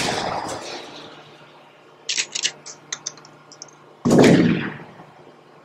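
Logo-intro sound effects: a hit as the logo lands, a quick run of sharp gunshot-like cracks about two seconds in, then a loud boom about four seconds in that fades away.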